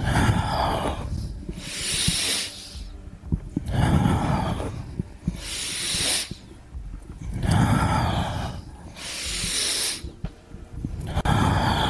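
Deep, audible breathing close to the microphone: slow inhales and exhales alternate about every two seconds. This is guided breathing paced with a slow stretching exercise.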